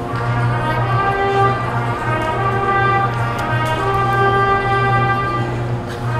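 School concert band playing, brass and saxophones sounding long held chords that move to a new chord every second or so.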